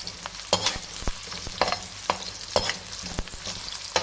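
Sliced onion sizzling in hot oil in a pan as it fries towards light brown, while a spatula stirs it, scraping and knocking against the pan in repeated strokes about every half second.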